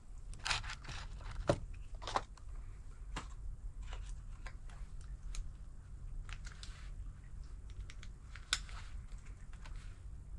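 9x18 cartridges being pushed one by one into a Polish P-64 pistol's six-round magazine: a series of small, irregular clicks and rattles of brass and steel, the sharpest about a second and a half in and again near the end.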